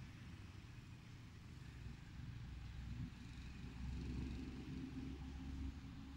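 Low, steady rumble with a faint hum, getting louder about three and a half seconds in.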